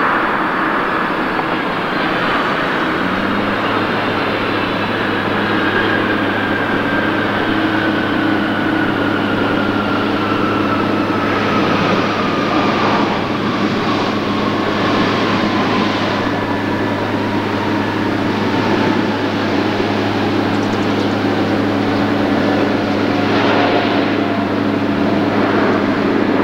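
Boeing 747-400's four jet engines spooling down as the airliner slows on the runway after landing: a broad steady roar with a whine that falls slowly in pitch. A steady low hum joins about three seconds in.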